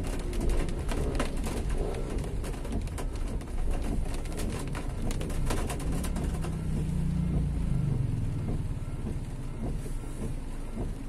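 Street traffic on a rainy road: a motor vehicle engine passes, its pitch falling about seven to eight seconds in, over a steady hiss of rain. Irregular sharp taps run through the first half.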